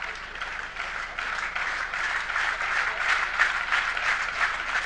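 Spectators clapping and applauding, growing louder about a second in and easing a little near the end.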